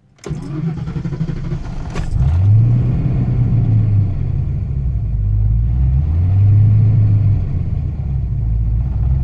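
Fox-body Mustang's built V8 with a big cam, on Holley Terminator X fuel injection, being warm-started: the starter cranks for about two seconds with the key held, the engine catches, flares up and then settles into an uneven idle whose speed drifts up and down. The key has to be held a little longer than ideal, a start that is still being tuned.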